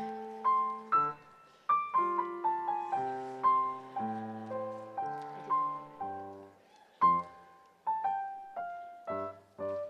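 Piano playing a slow tune: single notes and chords struck about once or twice a second, each ringing and fading before the next.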